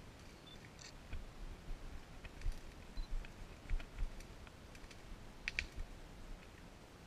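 Scattered light clicks and crackles, with a few soft low thumps and a denser burst of clicks about five and a half seconds in. A brief high chirp comes twice, near the start and about three seconds in.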